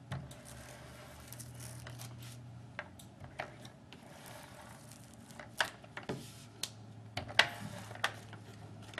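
Yellow ATG adhesive tape gun laying tape along the back of a sheet of paper: scattered sharp clicks and a few short rasping strokes as it is pressed and drawn across the paper.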